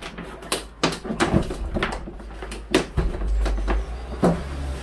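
Handling noise in a small enclosed van body: about half a dozen sharp knocks and clunks as electric hook-up cable and its reel are moved about on the floor, over a low rumble.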